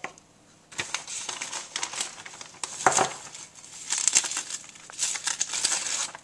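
Plastic bag of frozen chicken breasts crinkling on and off as the breasts are pulled out, with a knock about three seconds in.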